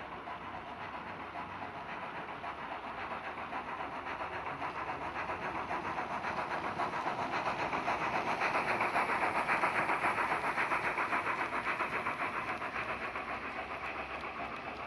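H0-scale (1:87) model steam locomotive and passenger coaches rolling along the layout's track, a steady running noise with a fast even clatter. It grows louder as the train passes close, peaking about two-thirds of the way through, then fades as it draws away.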